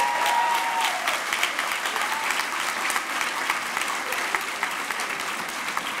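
Audience applauding: many hands clapping steadily, easing off slightly near the end.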